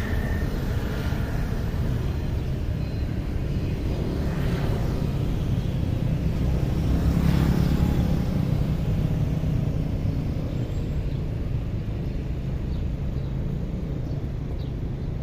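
Steady low rumble of street traffic, swelling to its loudest around the middle as a vehicle goes by.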